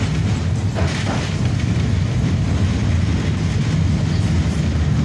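KTM tram running along its rails, heard from inside the car: a steady low rumble of wheels and running gear.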